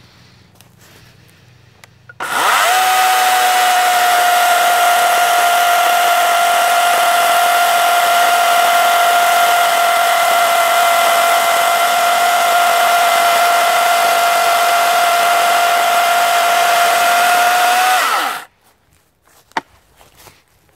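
WEN 40-volt brushless battery chainsaw starting about two seconds in and cutting through a log. A steady electric-motor whine with chain noise runs until the pitch rises slightly and the saw stops suddenly near the end.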